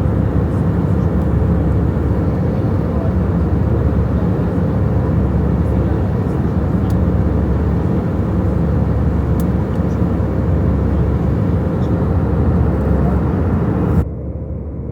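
Steady cabin noise inside a passenger airplane: the loud, even rumble of the engines and airflow with a steady hum. Near the end it drops suddenly to a quieter, duller version of the same noise.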